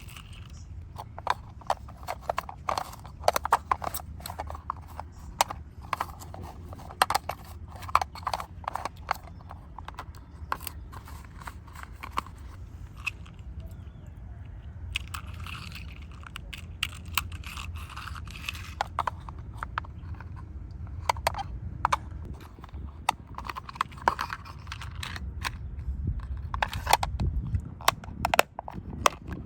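Irregular small clicks and taps of the die-cast metal model ambulance being handled and worked on, coming in clusters over a low steady hum.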